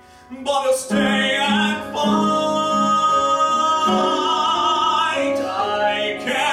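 A man's voice singing a musical-theatre ballad with piano accompaniment. The voice comes in strongly about half a second in and holds long notes with vibrato.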